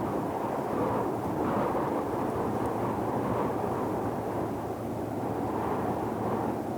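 Deep ocean white noise: a steady, low, rushing noise with slow, gentle swells.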